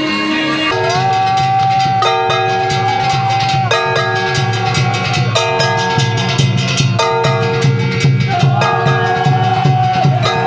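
Japanese dance music played over loudspeakers, with held chords changing every second or two, a sustained melody line that slides into its notes, and a steady drum beat underneath.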